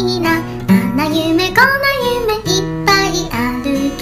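Background music: a song with a voice singing over acoustic guitar.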